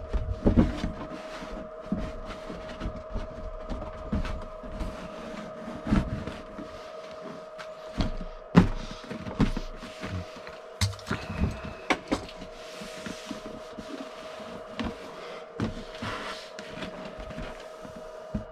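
Cardboard kit boxes and parts being handled and packed back into an RC buggy kit box: irregular knocks, taps and rustles, the sharpest about six and eight and a half seconds in, over a steady hum.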